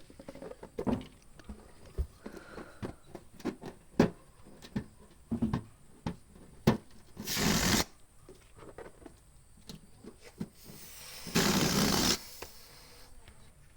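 Balloons and a hand pump being handled: rubber rubbing and squeaking with many small clicks, and two hissing rushes of air from the pump, a short one about halfway through and a longer one near the end.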